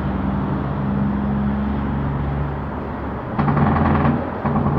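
A vehicle engine idling with a steady low hum. Twice, about three and a half and four and a half seconds in, a louder pitched sound rises over it for under a second.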